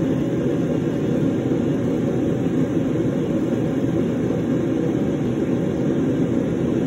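Steady low rushing noise, even and unchanging, like a constant machine or air noise.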